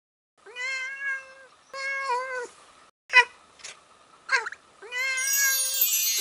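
A cat meowing several times: two drawn-out meows, a few short sharp cries around the middle, then another long meow near the end.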